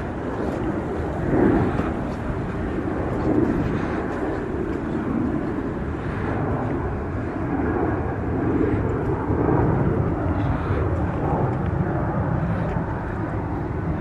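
A steady low outdoor rumble with a few soft swells and no distinct single event.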